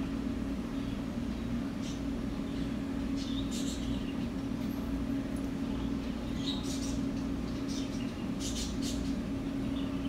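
Steady low indoor hum of store equipment, with a few short, hissy sounds every couple of seconds.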